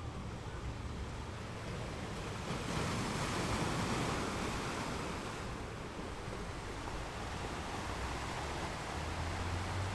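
Ocean waves breaking and washing on a beach, a steady wash of surf with one wave swelling up about three seconds in and easing off by about six seconds. A low wind rumble on the microphone comes in near the end.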